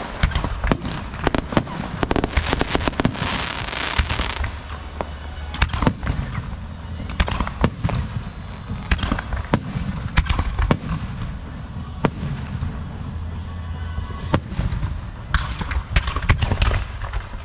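Aerial fireworks going off: a rapid stream of crackling bangs for about the first four seconds, then scattered single bangs, and another quick cluster of bangs near the end.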